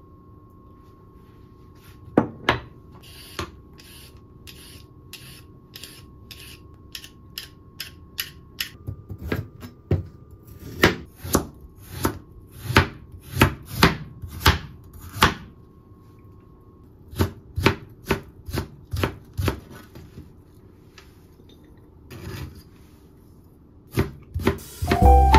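Knife slicing a carrot and then a cucumber on a plastic cutting board: runs of sharp taps as the blade meets the board, about two a second at the busiest, with short pauses between runs.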